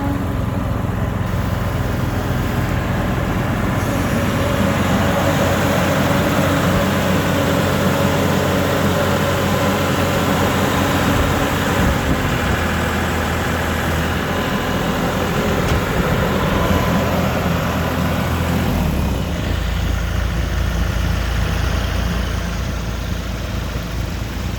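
Engine of a 2001 John Deere 260 skid steer running continuously. About nineteen seconds in, its higher tones drop away and it settles to a lower sound.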